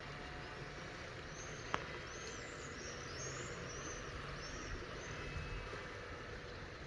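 Steady splashing of water with a small bird's high, arching chirps for a few seconds, and a single sharp click about two seconds in.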